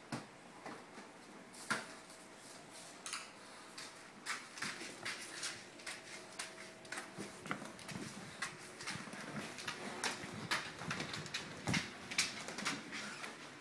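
A bulldog's claws clicking on a hard floor as she walks, in an irregular patter that grows busier about four seconds in, with knocks from the plastic food container she carries in her mouth.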